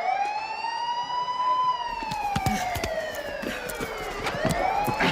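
Siren wailing, its pitch climbing and falling slowly in long sweeps of roughly four seconds. About two seconds in, a clatter of sharp knocks and scuffing noise joins it.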